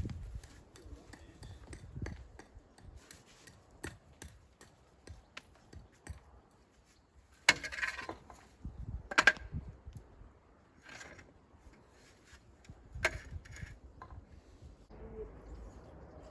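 Scattered taps, clinks and scrapes of hand tools on stone and mortar during masonry work, with a few louder clattering scrapes about halfway through and near the end.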